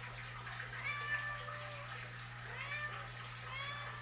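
Three short pitched animal calls that rise and fall in pitch, about a second in, near three seconds and near the end, over a steady low hum.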